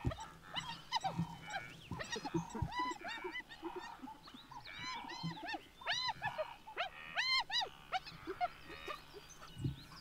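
Spotted hyenas calling during play: many short, high calls that rise and fall in pitch, coming in quick clusters.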